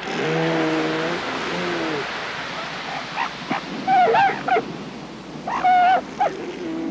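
Northern elephant seal cow and pup calling over the wash of surf: drawn-out lower calls near the start, then higher, wavering cries from about three seconds in, the loudest a little before the end.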